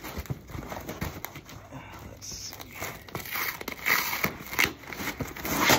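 Cardboard shipping box being opened by hand: packing tape tearing off and cardboard flaps scraping and rustling in irregular strokes, loudest about four seconds in and again near the end.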